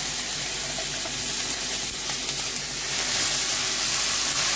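Hot oil sizzling steadily in a pan as handfuls of freshly washed, still-wet ponnanganni greens (dwarf copperleaf) are dropped in on top of fried onion and tempering; the pan is running very hot.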